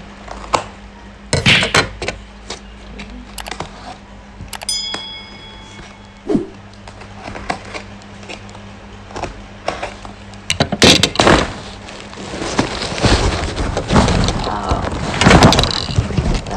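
A box cutter slitting the packing tape on a cardboard box, with scattered clicks and knocks. About ten seconds in, loud rustling and tearing of cardboard and packing as the box is pulled open.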